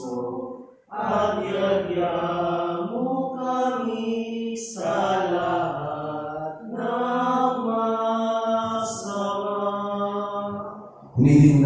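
A single voice singing a slow liturgical chant in long, held notes, with a short break about a second in. A louder man's voice breaks in near the end.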